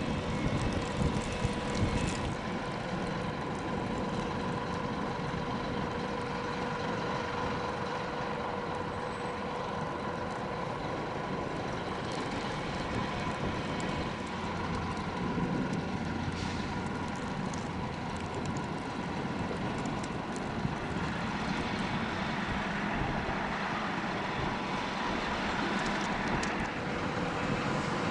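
Steady mechanical drone from a large ro-ro passenger ferry's engines and machinery carrying across the water, with a constant two-note hum and an even level throughout.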